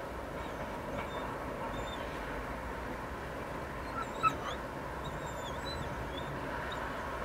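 A dog whining off and on in thin, wavering high-pitched whines, with one short sharp yelp about four seconds in, over a steady outdoor background hiss.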